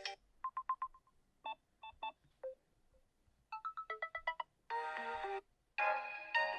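Samsung Galaxy M04 default system tones played one after another as short electronic chimes and beeps. There is a quick run of four beeps about half a second in, then a few short pips, a run of stepping notes, and two brief fuller chimes near the end.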